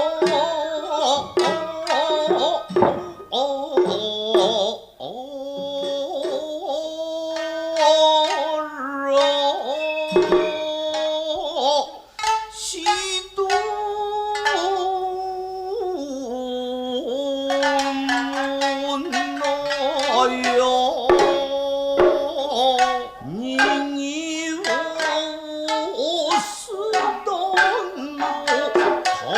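Nagauta ensemble music: plucked shamisen and struck hand drums under a long-held, wavering melody line.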